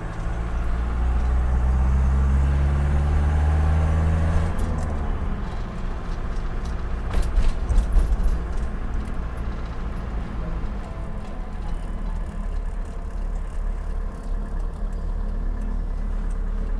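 Camper van engine and road noise heard from inside the cab while driving. The engine note rises gently for the first four seconds or so, then drops back, and a cluster of clicks and rattles comes about seven to eight seconds in.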